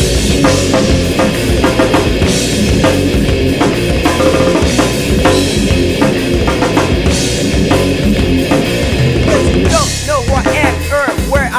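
Heavy rap-rock band playing an instrumental break with no vocals. A full drum kit with cymbals and bass drum drives under heavy band sound, and a run of short sliding high notes comes near the end.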